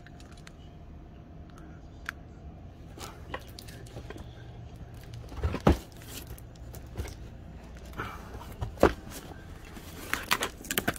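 A parcel being opened by hand: packaging tearing and rustling with scattered sharp clicks and knocks, two louder knocks about halfway and later on, and a quick run of clicks near the end, over a faint low steady hum.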